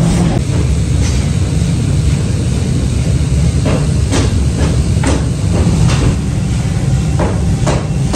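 Steady low rumble of forge-shop machinery. From about three and a half seconds in, a loose run of sharp metal clanks as forged steel stub-axle blanks knock together on a pile.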